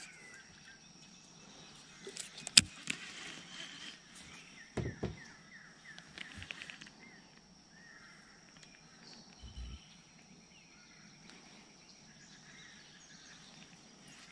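Quiet outdoor ambience with faint bird chirps and a steady faint high tone, broken by a few sharp clicks and knocks; the sharpest comes about two and a half seconds in.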